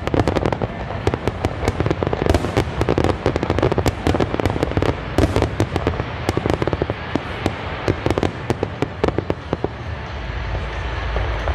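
Aerial fireworks display: a dense barrage of sharp bangs and crackling shell bursts in quick succession, thinning slightly near the end into a low rumble.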